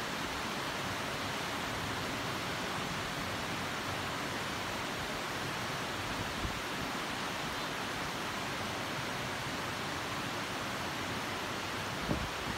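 Steady rain falling over the city, an even hiss with no let-up. Two soft low knocks sound over it, one about six seconds in and one near the end.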